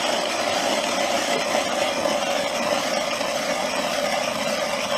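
Powered ice auger running at a steady, unchanging pitch as it drills into lake ice.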